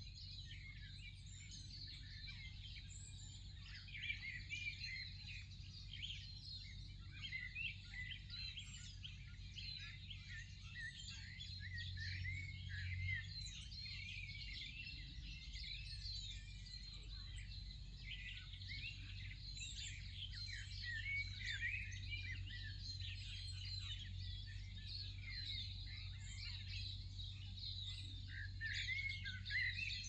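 A chorus of small songbirds chirping and twittering continuously, many overlapping calls, over a steady low rumble.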